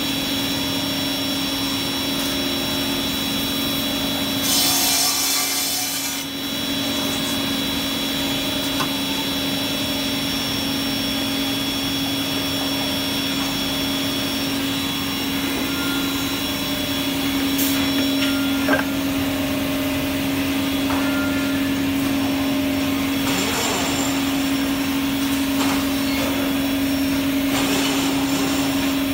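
Woodmaster WM-442R double-end cut-off saw running: a steady hum from its spinning circular blades and motors, with short louder noisy bursts about five seconds in and again around 24 seconds.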